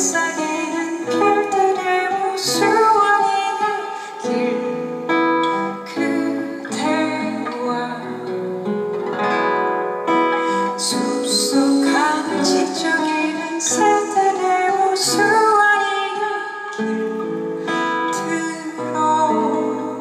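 Live band music: guitar playing with a woman singing.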